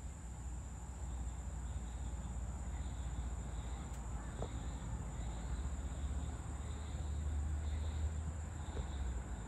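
Evening outdoor ambience: insects chirping faintly in a steady pulsing rhythm, a little more than once a second, over a low rumble that grows somewhat louder in the second half.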